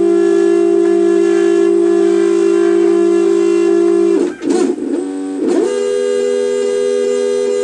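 Stepper motors of a home-built wooden CNC router whining steadily as the axes move. About four seconds in, the whine sweeps up and down for a second or so as the motion changes, then settles on a new, higher pitch.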